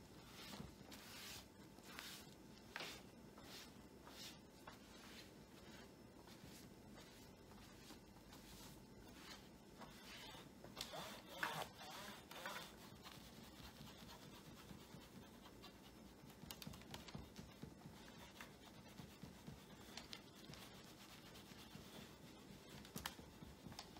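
Faint, irregular rubbing and scratching of a cloth wiped over the back of a computer monitor, briefly louder about halfway through.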